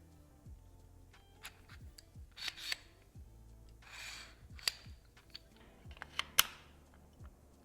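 Handling of packaging and hardware: scattered sharp clicks and a brief rustle, with the loudest click near the end, over quiet background music with a steady kick-drum beat.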